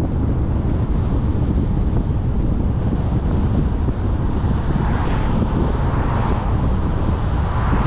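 Wind buffeting the microphone of a car-mounted camera over the steady low rumble of the car driving along the road. A higher hiss swells for a couple of seconds in the second half.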